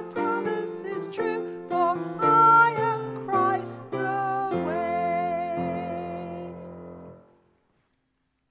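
The closing phrases of a hymn sung by a few voices with grand piano accompaniment. A final chord is held for about three seconds and fades out about seven seconds in.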